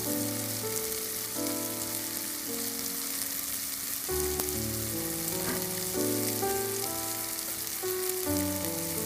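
Onion-tomato masala with chilli and coriander powder sizzling and crackling in hot oil in a pan. A melody of held notes plays under it as background music.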